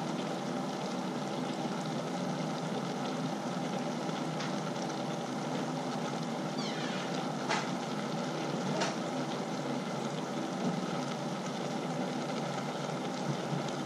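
A stainless-steel stock pot of curry broth at a steady boil, with a couple of faint clicks about halfway through.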